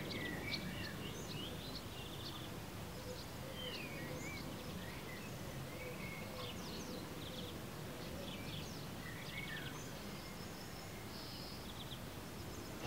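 Outdoor garden ambience: several birds chirping at intervals, with short rising and falling calls and a few quick trills, over a steady low background rumble.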